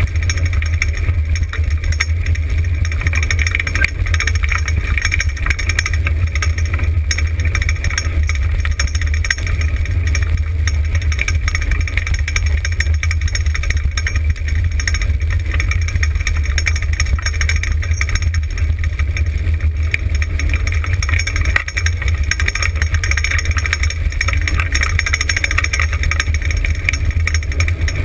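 Dryland dog rig rolling fast along a gravel road behind a husky team: a steady low rumble of wheels on gravel and wind on the microphone, with the rig's frame rattling.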